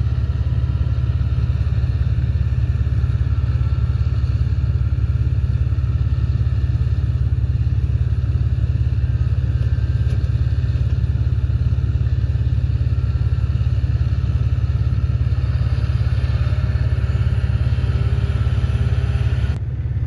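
John Deere tractor's engine running while its front loader lifts a round hay bale onto a flatbed trailer, under a heavy, steady low rumble.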